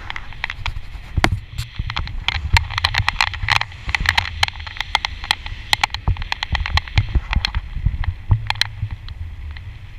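Wind rumbling on the microphone of a camera worn while parasailing, broken by many sharp, irregular clicks and knocks.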